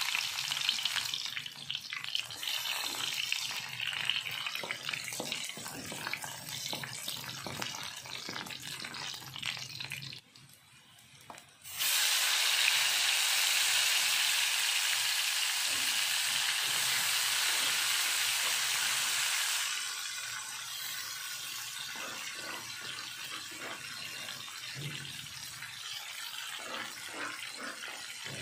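Running water, a steady splashing rush that stops briefly about ten seconds in, comes back louder for about eight seconds, then goes on more softly.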